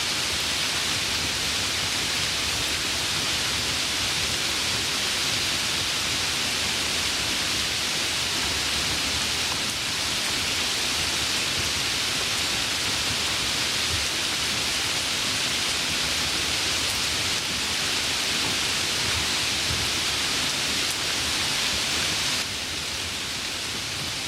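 Steady rain, an even hiss without distinct drops, dipping a little in level near the end.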